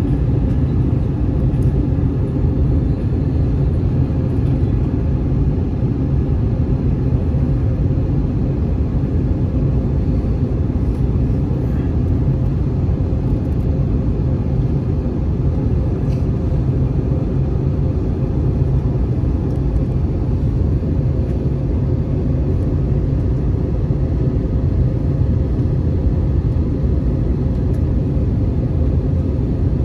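Steady low rumble of a jet airliner's engine and airflow noise, heard inside the passenger cabin in flight, with a faint steady hum on top.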